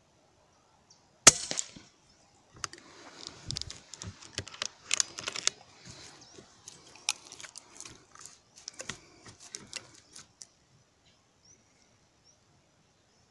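A single shot from a P15 pre-charged (compressed-air) rifle, one sharp crack about a second in. It is followed by several seconds of scattered clicks and rustling that die away a few seconds before the end.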